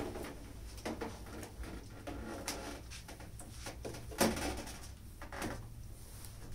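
Scattered light knocks, clunks and rattles of a metal-cased NAD C542 CD player being lifted and turned around on top of a stack of hi-fi units, its cables dragging; one louder knock comes about four seconds in.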